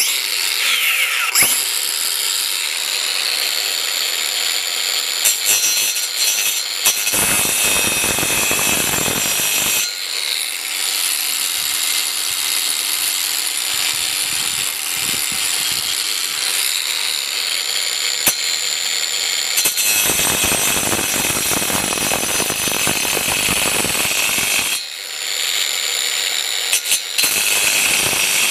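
Lightweight angle grinder with a metal, wood and concrete cutting blade, starting abruptly and running with a steady high whine while cutting into a metal spacer held in a vise. About seven seconds in and again about twenty seconds in, the sound turns coarser and fuller for a few seconds as the blade bites into the metal.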